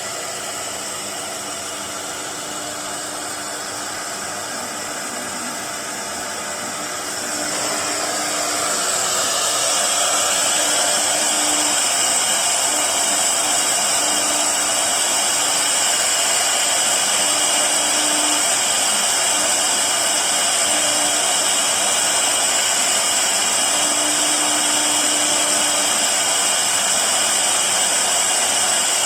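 Four-spindle CNC router running an automatic job, a steady high spindle whine over machine noise, growing louder about eight seconds in and then holding steady.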